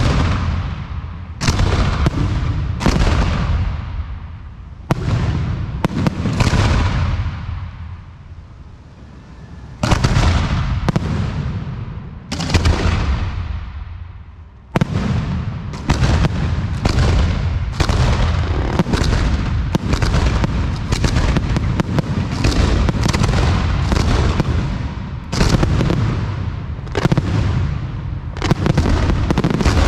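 Aerial fireworks bursting one after another. Spaced bangs with fading tails come in the first half, then from about halfway a dense, rapid run of bursts.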